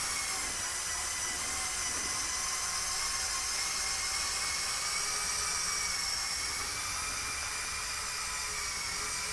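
LEGO Technic 42129 Mercedes-Benz Zetros trial truck running on its two L motors through geared planetary hubs, giving a steady electric whine with hiss. The pitch wavers slightly as the load changes.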